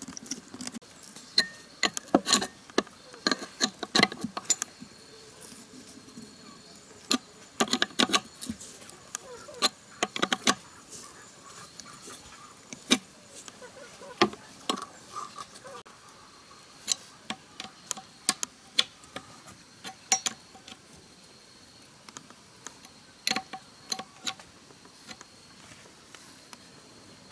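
Irregular metallic clicks, taps and clinks of hand tools and metal parts being handled on a car-wash pressure pump head, some in quick clusters.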